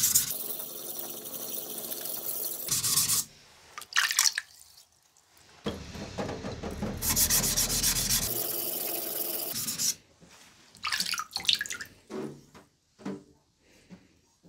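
Carbon-steel yanagiba sashimi knife blade being stroked back and forth on a wet green whetstone: a steady rasping grind in two long spells, with a few short scrapes between them and after the second.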